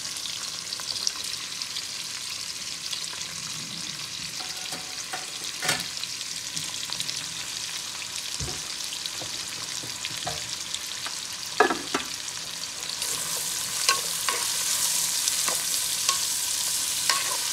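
Sliced onions sizzling in hot oil in a nonstick kadai with garlic and green chillies, stirred with a wooden spatula, with a few sharp knocks. The sizzle grows louder about two-thirds of the way in.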